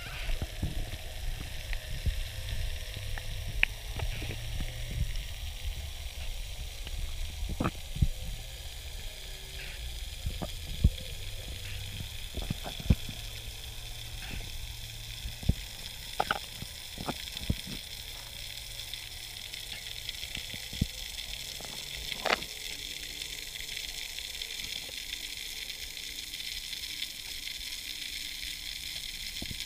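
Underwater sound picked up by a camera in a waterproof housing: a steady high crackling hiss, broken by scattered sharp clicks and knocks, with a low rumble through the first half.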